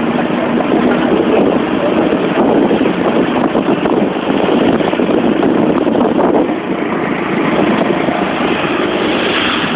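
Wind buffeting a phone microphone while riding, with a motor scooter engine running steadily underneath. It eases slightly a little past halfway.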